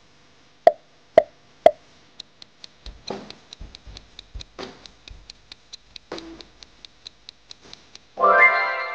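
Quiz sound effects: three quick pops, then a fast clock ticking about four times a second for the answer countdown. A loud ringing chime about eight seconds in marks the timer running out.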